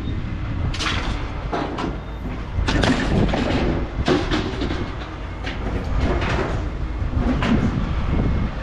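Irregular metallic clanks and rattles over a steady low rumble, typical of scrap metal being handled or hauled.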